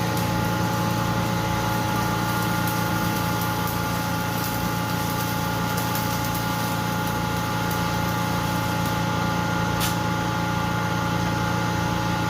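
An engine running steadily at a constant speed, an even hum with several steady tones, with faint scattered crackle above it.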